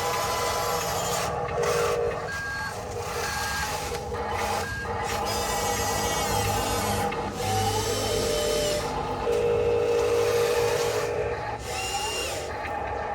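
Small electric motors and gearboxes of RC construction trucks whining, with their pitch shifting and gliding as the trucks move, over a steady rasping, scraping noise.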